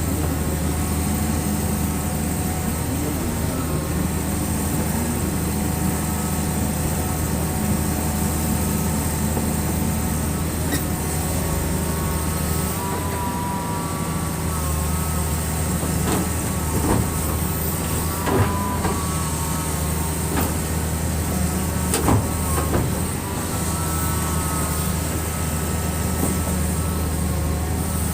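Excavator's diesel engine running steadily with a low hum, with a few sharp knocks in the second half.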